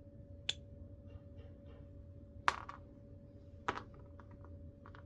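A few sharp small clicks, about a second or two apart, with fainter ticks near the end: small handle and knob parts of a Daiwa spinning reel being handled and fitted together.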